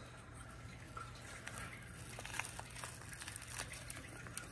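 Faint crinkling and small clicks of a small plastic packet being pulled open by hand, getting busier toward the end.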